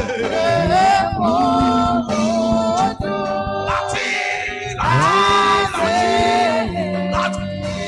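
Church worship singing: voices holding and sliding between long sung notes over a sustained musical backing.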